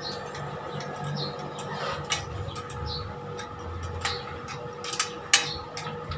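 Scattered light metallic clicks and taps from hands working a bolt on a steel wall bracket for an air-conditioner's outdoor unit, the sharpest click a little after five seconds in, over a faint steady hum.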